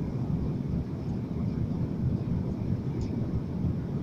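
Steady low cabin rumble of an Airbus A330-300 on approach, made by its Rolls-Royce Trent 700 engines and the airflow over the wing with the flaps extended.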